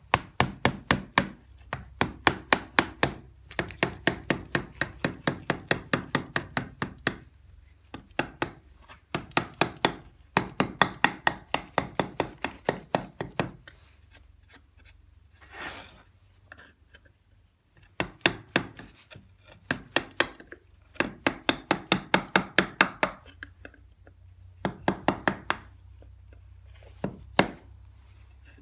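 Hand carving chisel cutting details into a cast relief plaque: quick, sharp strokes, about four a second, in runs of a few seconds with short pauses between.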